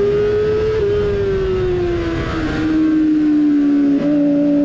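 Yamaha R6 inline-four engine with a GPR Furore exhaust, running at high revs while ridden hard in a race. Its single strong note rises slightly for the first second, then falls slowly, with a brief break about four seconds in.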